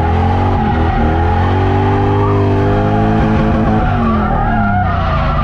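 V8 drift car's engine revving hard under a drift, its pitch climbing through the first two seconds and dropping about four seconds in, with tyres skidding.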